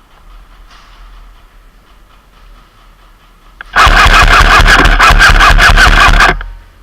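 Airsoft gun firing one long rapid full-auto burst, about two and a half seconds of fast evenly spaced shots, very loud and close. A single click comes just before the burst.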